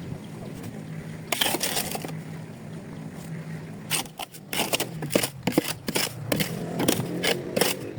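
Scraping and crunching of hand tools working loose soil and rubble as the ground is levelled: one scrape early on, then a quick run of crunching strokes through the second half, over a steady low hum.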